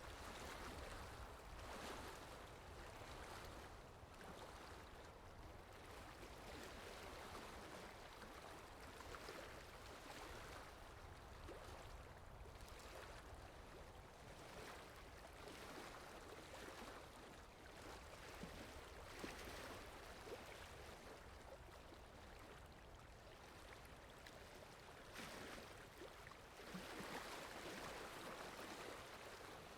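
Faint, steady rain falling, gently swelling and easing every few seconds, a little heavier near the end.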